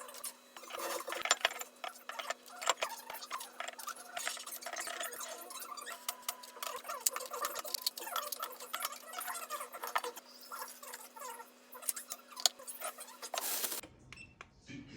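Many small clicks, taps and clinks of containers and items being handled while a fridge is cleared and organised, over a faint steady hum. The sound changes abruptly near the end.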